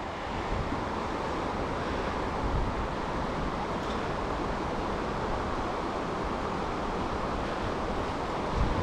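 Steady rushing of a tailwater river's flowing water, with a few low rumbles from wind on the microphone.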